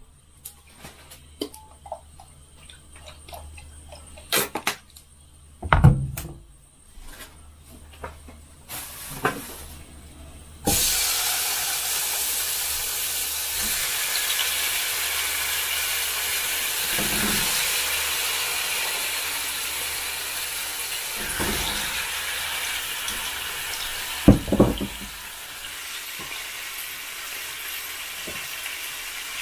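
Kitchen work sounds: scattered clinks and knocks of utensils and cookware, then a sudden steady rush of running water, as from a kitchen tap, which softens somewhat near the end, with a couple of knocks inside it.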